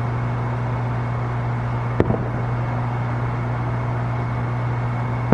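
A single firework bang about two seconds in, over a steady low mechanical hum.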